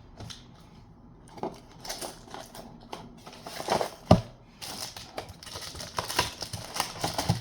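Trading cards and a cardboard box being handled and packed: scattered small clicks, taps and rustles, with a sharper knock about four seconds in and another near the end.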